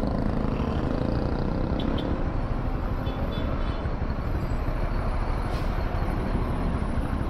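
Honda CB150R motorcycle riding through city traffic: steady wind rush on the camera mixed with engine and road noise.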